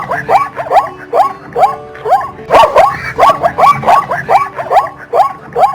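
Zebra barking: a quick string of yipping calls, each sweeping up in pitch, about three a second, loudest about two and a half seconds in.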